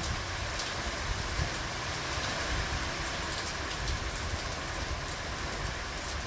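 Steady rain falling: an even hiss with scattered drop ticks and a low rumble underneath.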